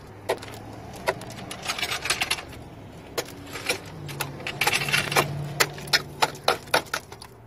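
Sharp metallic clicks and clinks of steel locking pliers being handled and clamped on a part in a car's engine bay, over a steady low hum that rises slightly in pitch about four seconds in.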